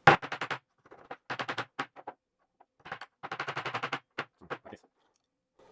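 Hammer tapping two small nails into a wooden block, in several quick runs of light strikes with short pauses between them.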